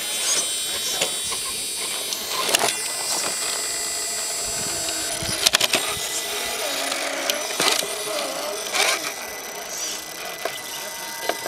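Electric motors and geartrains of scale RC rock crawlers whining and whirring as they crawl over rock, the pitch wavering with the throttle, with several sharp knocks as tyres and chassis strike the stone, a cluster of them about halfway through.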